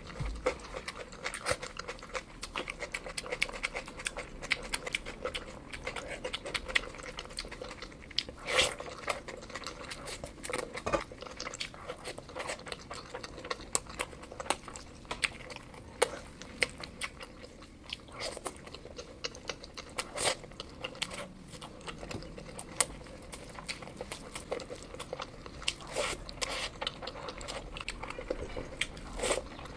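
Close-miked chewing and mouth sounds of a person eating curry and rice, with frequent irregular sharp smacks and clicks.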